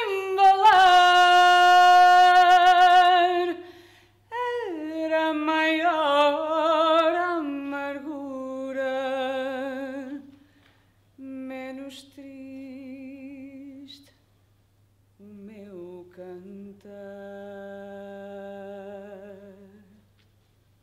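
A woman singing unaccompanied, holding long notes with vibrato in slow phrases separated by short pauses. The first held note is the loudest, and the later phrases are softer.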